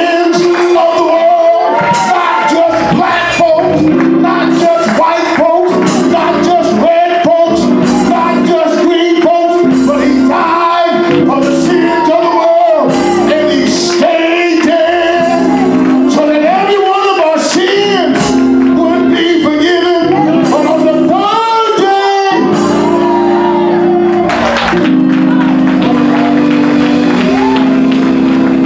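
A male preacher chanting and half-singing his sermon into a microphone in a shouted, sung cadence over sustained keyboard chords. About 22 seconds in the voice drops out and the chords carry on.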